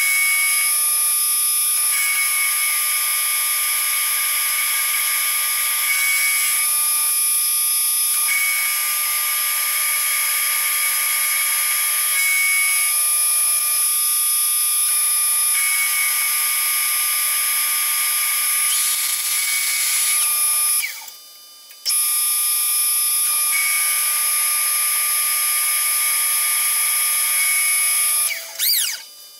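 Milling machine end mill cutting a slot down the centre of a 2.5-inch bar of 1144 stressproof steel, a steady machining whine whose tone shifts every few seconds. The sound cuts out briefly about 21 seconds in and again near the end.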